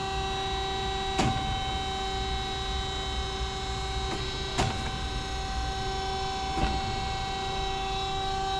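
Peerless VB-1820XL vertical band saw running steadily under its 480-volt three-phase motor: a constant hum with several steady whining tones. Three short clicks come a couple of seconds apart.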